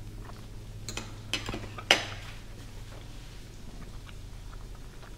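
Metal cutlery clinking against a plate: a few light clinks, then a sharper clink with a short ring about two seconds in.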